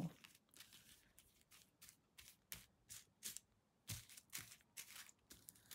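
Faint, irregular rustles and light clicks of small plastic zip-lock bags of diamond-painting drills being shuffled through by hand.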